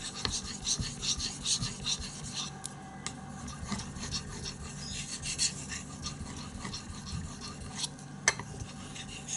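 A steel knife blade, a Fallkniven F1, stroked back and forth by hand on a whetstone. It makes a repeated scraping rasp, quick and dense for the first couple of seconds, then slower and lighter strokes. The sharpening is restoring minor damage to the edge.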